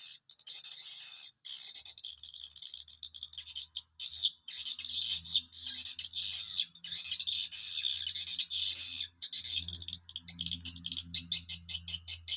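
Swiftlets twittering: a dense, rapid stream of high chirps. A low steady hum comes in about two seconds in and recurs through the rest.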